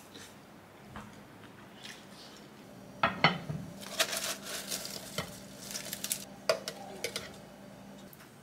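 A fork clinking and scraping against a glass jar as salad greens and mushrooms are shaken out onto a ceramic plate, with rustling of the leaves. Two sharp clinks come about three seconds in, then scattered clicks and rustling.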